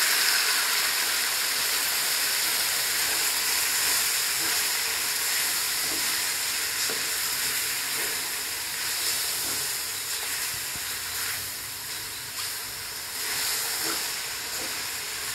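Pressure-cooked chicken gizzards sizzling in hot oil in a large aluminium wok, just tipped in onto sautéed garlic and onion: a steady hiss that eases slowly. Near the end a wooden spoon stirs them, with a few faint scrapes.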